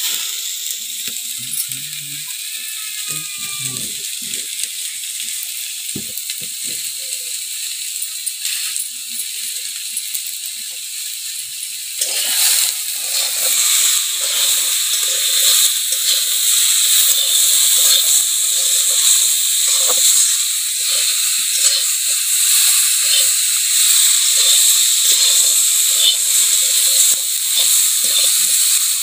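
Chopped jackfruit sizzling as it fries in a metal kadhai, with a metal spatula scraping and stirring it in quick repeated strokes. The sizzle and the stirring become louder about twelve seconds in.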